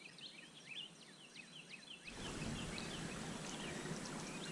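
Faint outdoor ambience of small birds chirping rapidly and repeatedly; from about two seconds in a steady rushing noise comes up under them.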